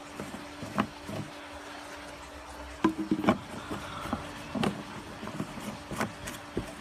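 Scattered light clicks and knocks of handling: fingers on a plastic fuel tank cap set in a fiberglass hull, with a small cluster of knocks about three seconds in, over a faint steady hum.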